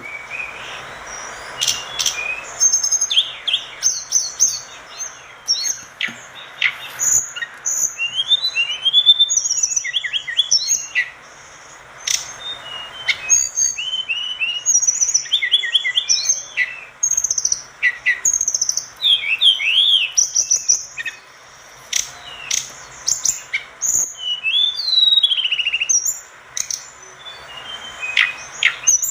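Tledekan gunung singing continuously: a rapid run of high, sharp chirps, whistles and short trills with brief pauses, mixed with a few sharp clicks.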